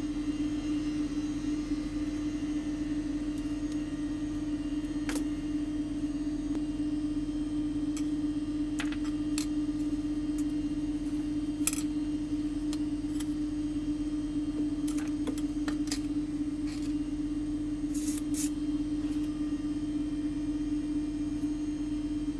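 Steady electrical hum with scattered small clicks and taps from hand tools working on a circuit board.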